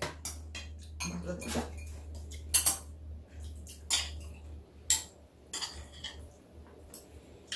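Metal chopsticks clicking and scraping against ceramic and stainless steel bowls as noodles are picked up and mixed, in sharp irregular clinks about once a second. A low steady hum runs underneath.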